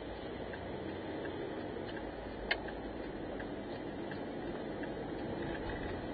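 Steady engine and road noise inside a car's cabin as it turns left, with a faint regular ticking of the turn signal, about one tick every 0.7 seconds. A single sharp click comes about two and a half seconds in.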